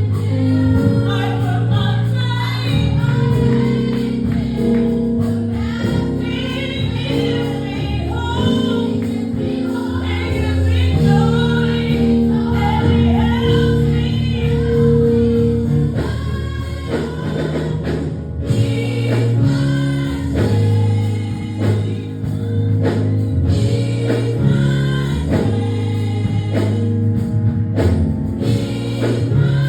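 Gospel choir singing live over sustained low instrumental accompaniment; about halfway through the voices thin out and the band's drum hits come forward.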